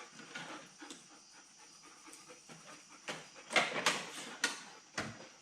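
A dog panting close by, in short breathy bursts that come quicker and louder a little past the middle.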